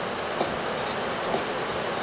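Steady rushing noise of breaking ocean surf, with a faint short tick about once a second and a low steady hum underneath.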